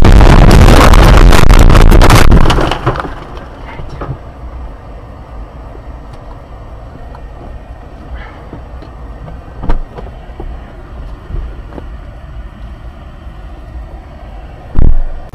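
Car crashing off the road into roadside brush: a loud crunching, scraping noise packed with impacts for about two and a half seconds, which then stops abruptly. After it comes a quieter low rumble with scattered knocks and rustles, and a loud thump about ten seconds in and again near the end.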